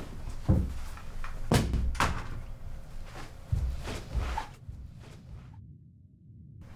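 A run of dull thuds and sharper knocks, about five in the first four and a half seconds: a man getting up from a sofa and walking off heavily, with a door banging.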